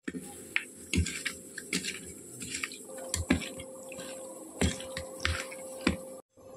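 A hand mixing small mourola fish (mola carplets) with salt and turmeric in a steel bowl: irregular wet squishing, with sharp clicks as the fish knock against the steel.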